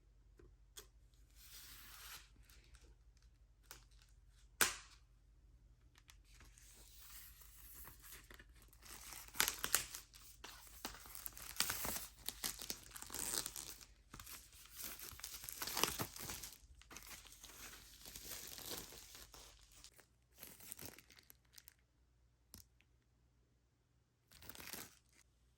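Packaging of a vinyl LP being torn open and crinkled by hand: irregular tearing and rustling strokes that come thickest in the middle stretch, with a sharp click early on and a last short tear near the end.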